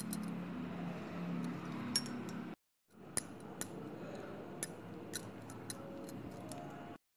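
A spatula stirring thick pancake batter in a steel bowl, with light irregular clicks as it knocks against the bowl's side. The sound breaks off briefly about two and a half seconds in.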